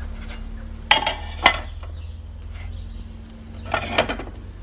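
Plastic slotted spatula scraping against a non-stick flat griddle pan as it slides under a folded tortilla wrap. There are two short scrapes about a second in and another pair near the end, over a low steady hum.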